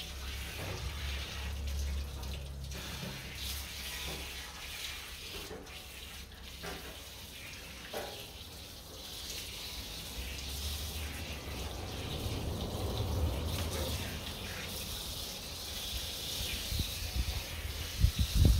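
Water from a garden hose splashing steadily onto a small dog and the wet concrete floor as the dog is rinsed during its bath. A brief loud low thump comes near the end.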